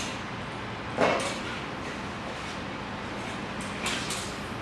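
Metal furniture frame knocking as it is handled and set on a wooden floor: one solid knock about a second in and a lighter click near the end, over a steady hiss.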